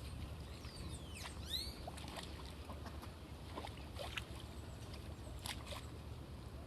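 Outdoor wetland ambience: a steady low rumble with scattered short bird chirps and a cluster of sweeping whistled calls about a second in.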